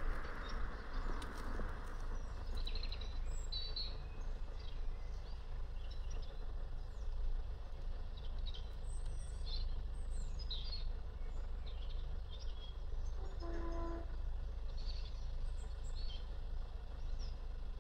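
Small birds chirping and singing at intervals over a steady low rumble of outdoor background noise, with a short pitched tone about thirteen seconds in.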